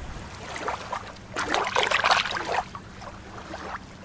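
Shallow water splashing and trickling, loudest and most broken from about a second and a half to two and a half seconds in.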